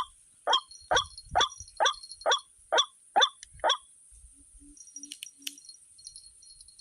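White-breasted waterhen calling: a run of about nine harsh, repeated notes, roughly two a second, that stops about four seconds in.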